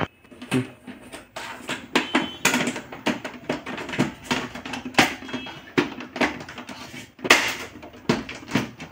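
Plastic lid of an Epson L360 ink-tank printer being worked and pressed into place by hand: an irregular run of plastic clicks, taps and knocks.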